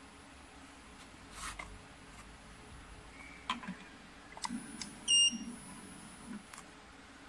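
A single short electronic beep from a CYCJET ALT390HP inkjet coder about five seconds in, as it prints a code on a jar. Before and around it come light clicks and knocks of the jar being handled against the machine.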